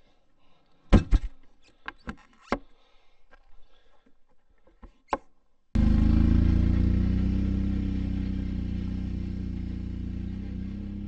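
A few sharp knocks and clicks. About halfway through, a Can-Am ATV's engine comes in suddenly and runs steadily, fading slowly as the quad drives away.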